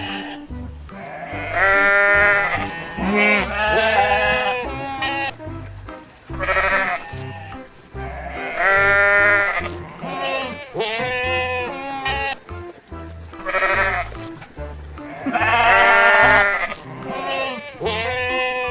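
Sheep bleating again and again, long calls that waver in pitch, over background music with a steady low beat.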